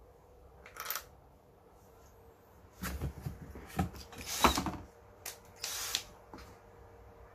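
Handling noises: a string of clicks, knocks and short rustling scrapes, the loudest about halfway through.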